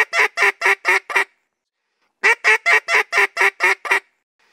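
Duck call blown in a chop-chop cadence: rapid, clipped quacks, about six a second, a responsive call meant to sound like a duck answering another. One run of notes ends about a second in, and after a short pause a second run of about ten notes follows.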